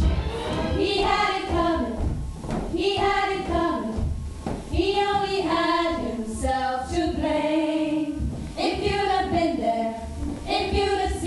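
Ensemble of women singing together over instrumental backing, in a run of short sung phrases about a second long, each broken by a brief gap.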